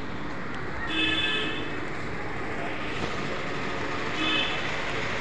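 Steady hum of town traffic with two short vehicle horn toots, one about a second in and another about four seconds in.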